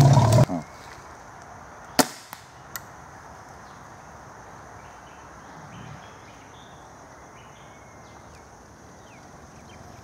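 A loud, low sound, most likely the charging elephant's call, stops abruptly in the first half second. A single sharp crack comes about two seconds in. After it there is only quiet forest ambience with a steady, high insect drone.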